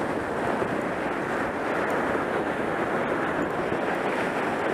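Surf washing in over the sand, with wind buffeting the microphone: a steady rushing noise.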